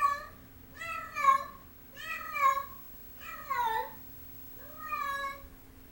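Domestic cat meowing repeatedly: five separate meows, about one a second, the fourth sliding down in pitch.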